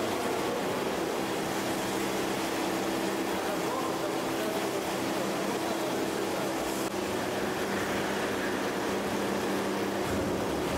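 Steady mechanical drone of a fish-processing line: the whole-fish grader's conveyor and drive motors running, with a constant low hum.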